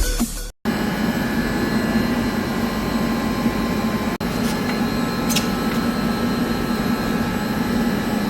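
Electric water pump running steadily: a constant machine hum with a strong low drone and faint steady higher whines.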